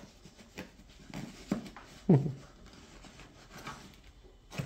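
Rummaging through a box of tools and packaging: scattered light knocks, clicks and rustles of items being moved. About two seconds in there is a short sound that falls in pitch, and near the end a sharp click.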